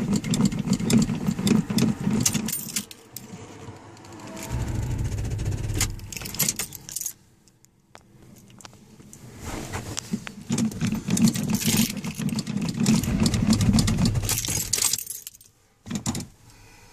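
Starter cranking a cold Chevy engine in two long attempts, the second starting about nine seconds in and stopping about fifteen seconds in, with sharp rattling clicks throughout. The battery is running down and needs charging.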